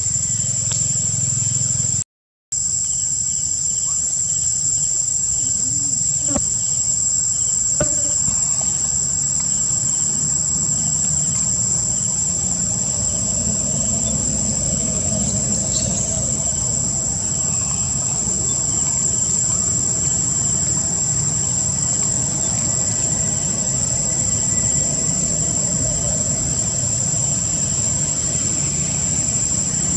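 A chorus of insects sounding one steady, high-pitched tone over a low, steady rumble. All sound cuts out for a moment about two seconds in.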